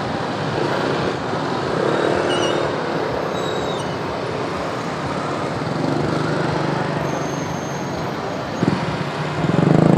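Busy street traffic: small motor scooter engines running, with a steady hum of traffic throughout and one louder engine close by near the end.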